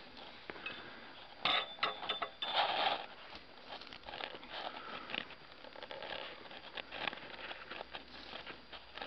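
A roll of turf being rolled by hand over bare soil: irregular scraping and rustling of grass, roots and earth, with short clicks, loudest in bursts about one and a half to three seconds in.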